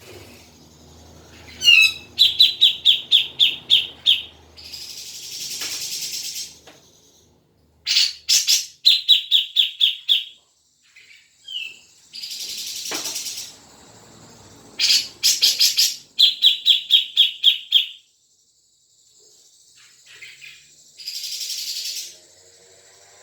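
Cucak jenggot (grey-cheeked bulbul) calling in repeated cycles: a fast run of about eight to ten sharp notes, then a harsh rasping hiss lasting about a second and a half. The pattern comes three times, with short gaps between.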